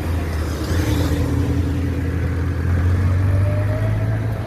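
An engine running steadily: a loud low hum with a faint whine that drifts slowly in pitch.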